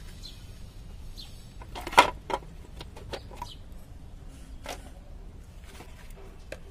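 Plastic knocks and clatter from a mixer grinder's plastic body being lifted, turned over and set around its motor unit, with the loudest clatter about two seconds in and a few scattered knocks after.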